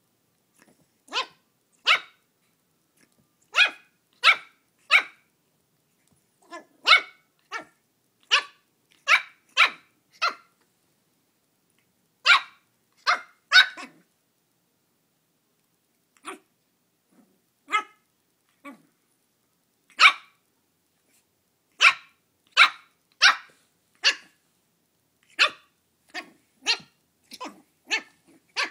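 Shih tzu puppy barking at a mini pumpkin: about thirty short, sharp yaps, mostly in quick runs of two or three, with a pause of a couple of seconds about halfway through.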